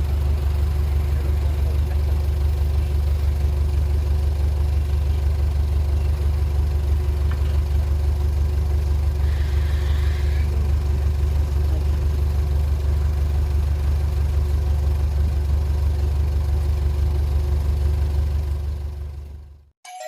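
Heavy diesel engine of earthmoving machinery running steadily with a deep, even drone, fading out near the end.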